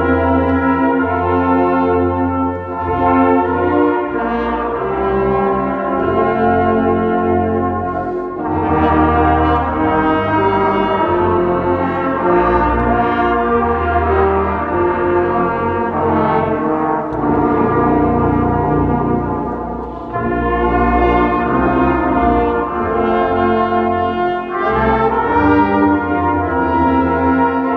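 Brass ensemble playing a hymn-like piece in held chords, with short breaks between phrases.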